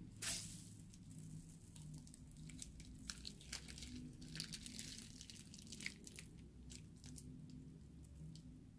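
Scissors snip through a plastic piping bag with one sharp click just after the start. This is followed by faint crackling and squishing as green liquid is squeezed out of the bag onto slime and foam beads.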